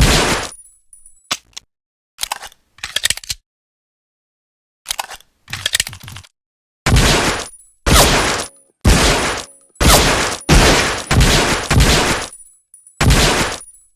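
Colt M1911A1 .45 pistol firing: one shot at the start, then a few quieter metallic clicks, then a string of about seven shots roughly a second apart, each with a short decaying echo.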